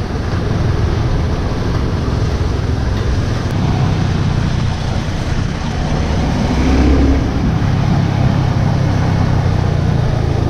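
Motorcycle running at road speed, its engine mixed with wind rushing over the microphone; briefly louder about seven seconds in.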